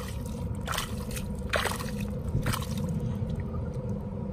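A bare hand squelching and sloshing through wet mud and muddy water, feeling along a flooded burrow, with three sharp wet squishes about a second apart.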